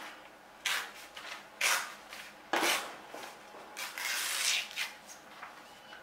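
A sheet of A4 paper being creased and torn along its fold, heard as a series of short dry rustles and rubs. The longest comes about four seconds in.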